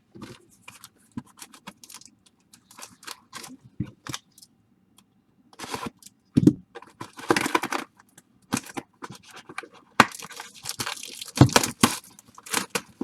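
Baseball card pack wrappers being torn open and crinkled, and the cards handled: a run of short rustles and crackles, thickest and loudest a little past the middle and again near the end.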